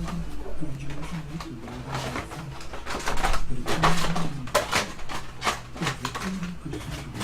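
Trading-card box and packs being opened and handled by hand: irregular crinkling, tearing and clicking of plastic wrappers and cardboard.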